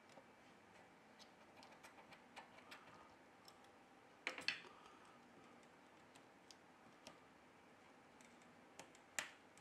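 Faint light clicks and taps of small smartphone parts being handled during reassembly. A few louder sharp clicks come about halfway through and one just before the end.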